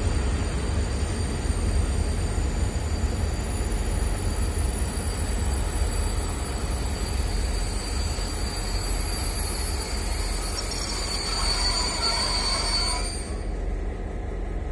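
Freight wagons rolling past with a steady low rumble and a thin, high-pitched squeal from the wheels. The squeal grows stronger about two-thirds of the way in, then stops shortly before the end.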